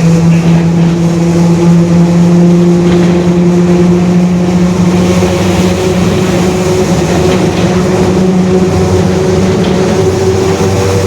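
Mercedes-Benz OF-1721 city bus under way, its OM 924 LA four-cylinder diesel running under a strong steady drone that climbs slightly in pitch about five seconds in: the growling differential this bus has.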